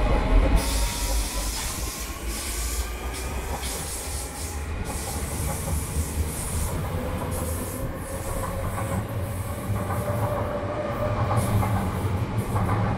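Marmaray commuter electric multiple unit moving along the platform. Its traction motor whine rises in pitch as it gathers speed, over a steady rumble and hiss of wheels on the rails.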